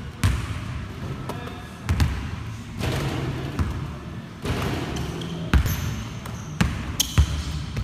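Basketballs bouncing on a gym floor in dribbling drills: irregular thuds, several a few seconds apart, with a few short high squeaks in the second half.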